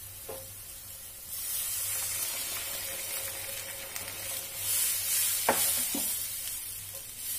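Water added to masala frying in oil in a red non-stick pan: the sizzle jumps louder about a second in and keeps going while a wooden spatula stirs, knocking against the pan a few times.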